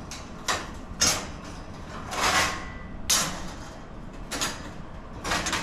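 Plasma-cut 2 mm stainless steel sheet and its cut-out letter pieces clinking and knocking as they are handled by hand, about six sharp metal knocks, with a short scrape of metal on metal about two seconds in.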